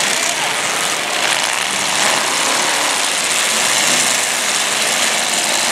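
Engines of several demolition derby cars running loud together in a steady, dense din.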